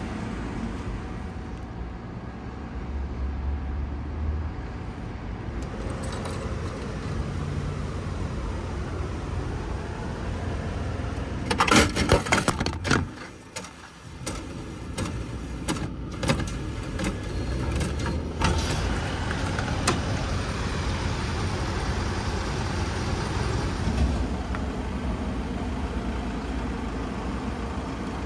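Steady rumble of street traffic. A little before halfway comes a burst of loud metallic clatter and clicks from a vending machine being worked, with a few more scattered clicks over the next several seconds.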